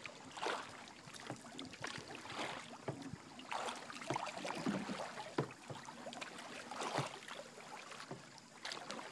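Kayak paddle strokes in calm river water: quiet splashing and dripping from the blades about once a second.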